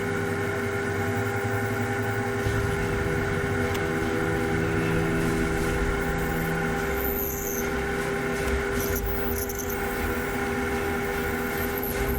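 Wood lathe running with a steady motor whine while a hole is drilled into the end grain of a tawa blank; brief high squeals come about seven, nine and twelve seconds in.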